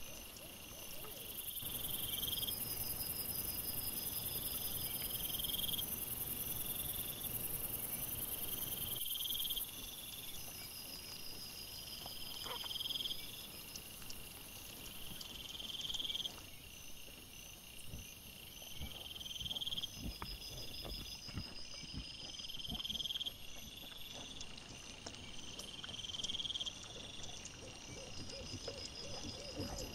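Crickets chirping in a night forest. A short high chirp repeats about every three seconds, and a long, very high insect buzz runs over the first third, with faint scattered knocks and rustles underneath.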